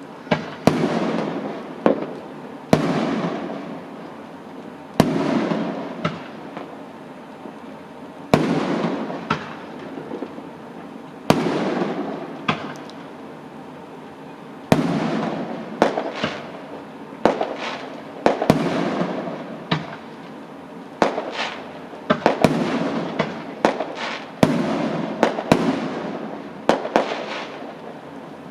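Fireworks exploding: a string of sharp bangs at irregular intervals, each trailing off in a rumble over a second or two, with quicker clusters of pops and crackles in the second half.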